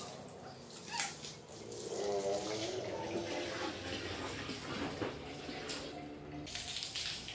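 Water running from a garden hose, splashing onto wet tiles and into an inflatable paddling pool. A young child whimpers briefly about two seconds in.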